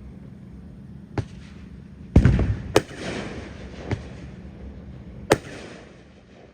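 A 500-gram consumer fireworks cake firing: about five sharp bangs at uneven gaps, the loudest about two seconds in, with crackling between them that fades near the end.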